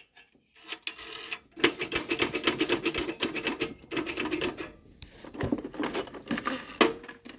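Rapid metallic clicking and rattling from a 1963 payphone's coin mechanism being worked by hand after a coin failed to drop through. The clicking comes in two spells, the first about a second and a half in and the second after a short pause, with a faint metallic ring under the clicks.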